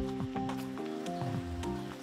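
Background music: a tune of short stepped notes over a low sliding bass line, with light percussion ticks.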